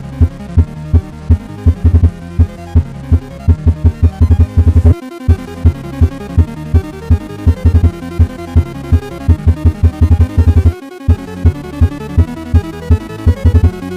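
Mock emergency alert (EAS-style) alarm with added bass: a dense clash of electronic tones over loud, fast bass pulses, cutting out for a moment about five seconds in and again near eleven.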